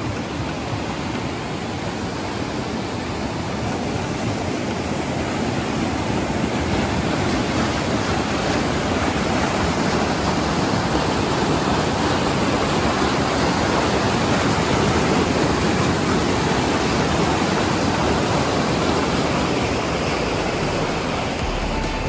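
Fast stream water running down small cascades over smooth granite rock, a steady rushing noise that grows a little louder toward the middle.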